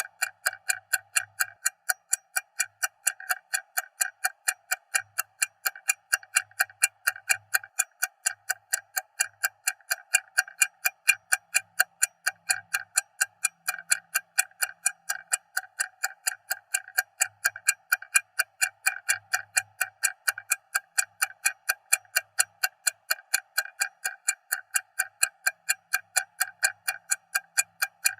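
Stopwatch ticking: rapid, even, sharp ticks at several per second, with no break.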